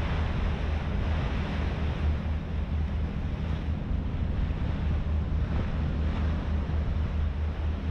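HADAG harbour ferry underway: the engine's low, pulsing drone under wind buffeting the microphone and water rushing along the hull.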